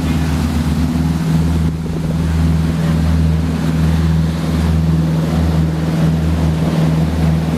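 Motorboat engine running at a steady low hum while under way, with water rushing past the hull and wind on the microphone.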